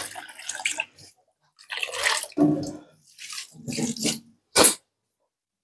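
Water running and splashing in a kitchen sink in short, uneven bursts as thawed tempe is rinsed and drained, with a short sharp splash near the end.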